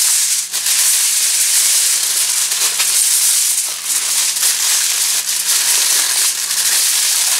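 Aluminium foil crinkling and crackling continuously as it is rolled and crimped by hand around ears of corn.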